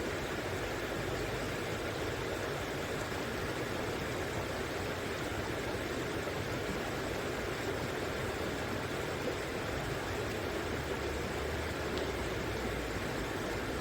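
Steady rushing of a river's flowing water, an even noise with no breaks or single splashes.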